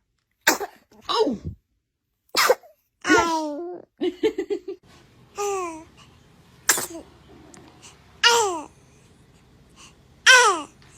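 A baby sneezing again and again, about half a dozen times, each sneeze a sudden sharp burst that trails off into a falling squeal. A quick giggle comes about four seconds in.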